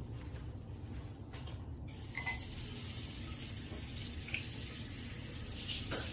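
Water running from a tap: a steady hiss that starts suddenly about two seconds in, over a low hum, with a few faint ticks.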